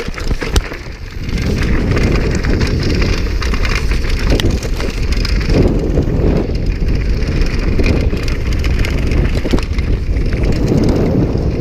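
Downhill mountain bike ridden fast over a rough, bumpy dirt trail: steady wind rumble on the microphone with constant rattling and clattering of the bike over the bumps, easing briefly about a second in.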